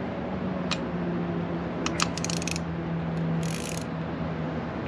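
Ratchet clicking in short runs while a new spark plug is tightened through a socket on an extension, just far enough to crush its sealing washer. The fastest run of clicks comes about two seconds in.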